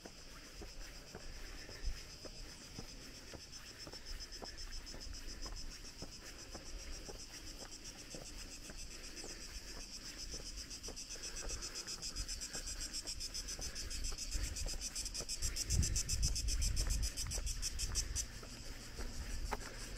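Cicadas buzzing: a steady, rapidly pulsing chorus that swells louder in the second half. A brief low rumble comes partway through.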